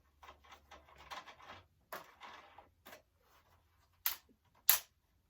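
Plastic parts of a ring light's phone holder being handled and fitted: a run of quick clicks and rattles, then two sharp, loud snaps near the end.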